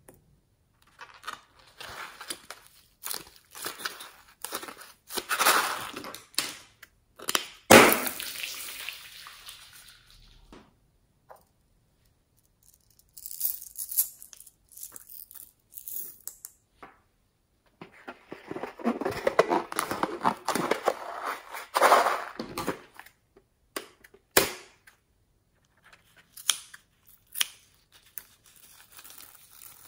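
Close-up handling noises of squishy stress-ball toys being squeezed and opened: crinkling, tearing and sharp clicks in bursts, with one loud snap about eight seconds in.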